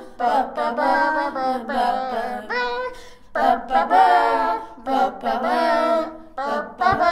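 A young voice singing a wordless 'ba ba ba' melody unaccompanied, in phrases of about a second with short breaks between them.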